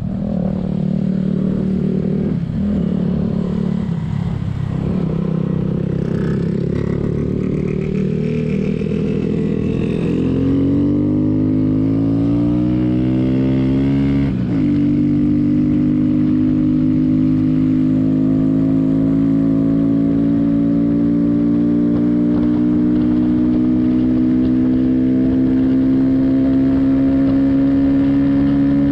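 Single-cylinder 125 cc mini-bike engine heard on board while riding: the pitch climbs for a few seconds, falls sharply at a gear change about halfway through, then holds a steady cruise that slowly rises.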